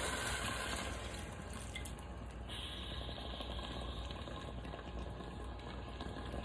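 Chicken broth poured from a glass bowl into the Instant Pot's inner pot of oxtails: a steady pour and splash of liquid.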